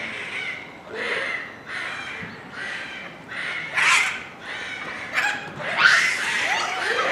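A troop of Japanese macaques calling noisily: short, loud calls follow one another about every half second to second. The loudest come about four and six seconds in, and some calls sweep upward in pitch near the end.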